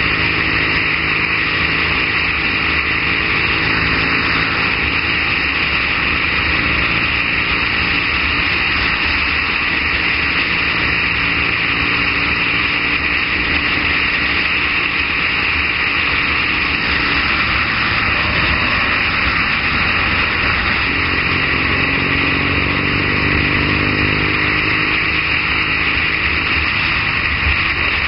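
Triumph Bonneville's parallel-twin engine running at road speed under heavy wind noise on the microphone. The engine note rises and falls a few times in the second half as the speed changes.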